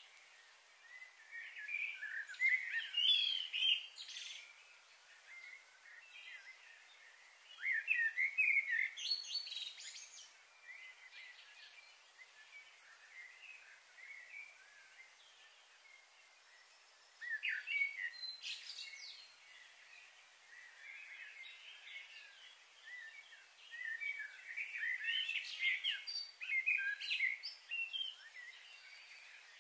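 Small birds chirping in short bouts, several times, over a steady background hiss.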